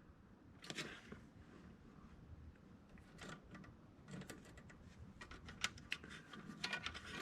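Faint, irregular light clicks and taps, more frequent in the second half: handling of multimeter test probes and wiring while checking terminals for voltage.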